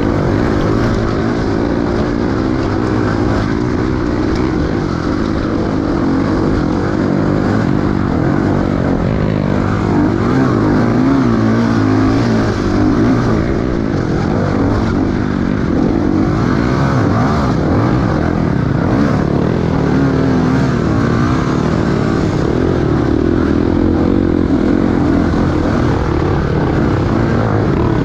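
Enduro dirt bike engine running hard, its revs rising and falling continually as the throttle is worked.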